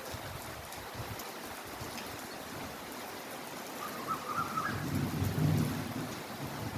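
Heavy, steady rainfall hissing evenly, with scattered drop ticks. A low rumble swells in during the second half.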